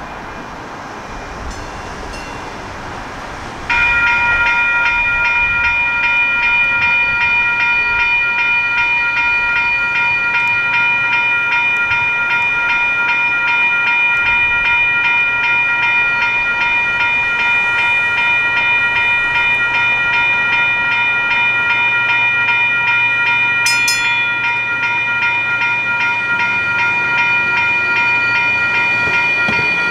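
Railroad crossing bell starting to ring about four seconds in and ringing steadily with evenly repeated strokes as the crossing signals activate. A low rumble sits underneath through the middle of the stretch.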